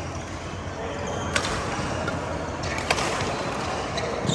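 Badminton rackets striking a shuttlecock in a rally: two sharp smacks about a second and a half apart, then fainter hits near the end.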